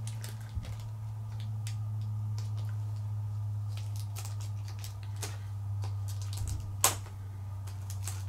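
Fingernails picking and scratching at the plastic shrink-wrap on a small cardboard card box: scattered light clicks and crinkles, with one sharper click about seven seconds in. A steady low hum runs underneath.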